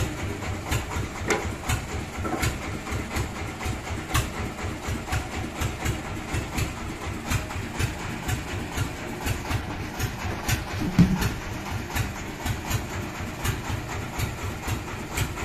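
Sawmill bandsaw machinery running steadily with a rapid, even chugging and scattered sharp clicks. One heavy thump about eleven seconds in.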